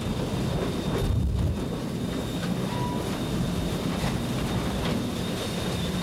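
Small narrow-gauge steam locomotive of the sugarcane train running: a steady low running noise with steam hiss and rail sounds.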